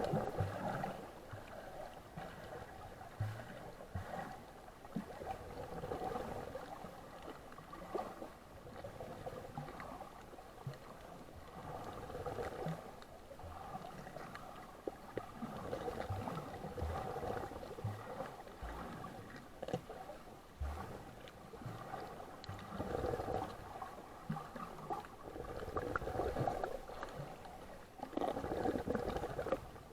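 Muffled water sounds, a washing noise that swells and fades every few seconds, with occasional soft knocks.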